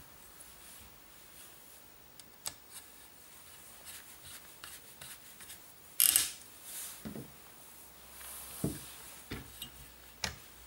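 Sako TRG M10 rifle chassis and handguard being handled with a small tool: soft rubbing and light clicks of parts, with one sharp, louder scraping click about six seconds in.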